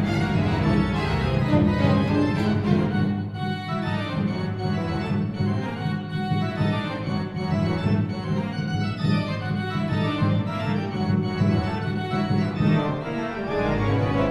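Live orchestral music: an organ holding sustained low chords with a chamber string orchestra, moving lines running above them, and a deeper bass note coming in near the end.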